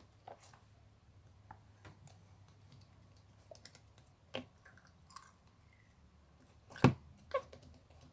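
Clear slime being handled, giving scattered small sticky clicks and pops, with two louder pops close together near the end.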